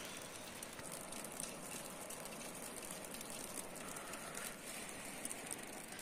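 Soft, steady patter and hiss of wet snow falling on leaves and the ground, with a light breeze.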